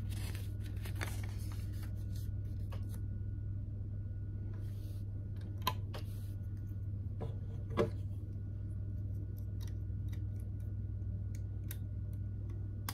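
Plastic LEGO pieces clicking as they are handled and pressed together, with a brief rustle, two louder clicks around the middle and a run of faint ticks after them, over a steady low hum.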